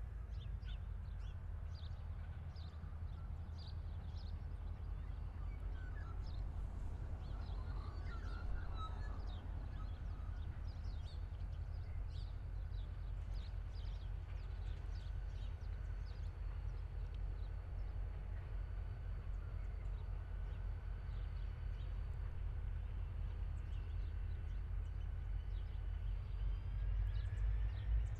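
Outdoor ambience: a steady low rumble with birds calling, the calls mostly in the first part.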